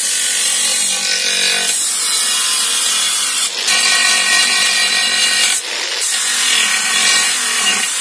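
Angle grinder with a coarse flap disc grinding a cast aluminium wheel rim: a loud, steady grinding whine with several pitches. It eases off briefly about three and a half seconds in and again around six seconds.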